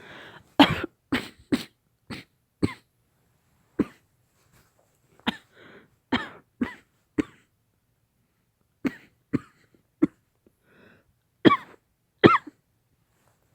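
A woman coughing hard, about fifteen short, harsh coughs in several fits with pauses between, some with a rasping voiced edge. The coughing is acted as a heavy lingering cough after COVID.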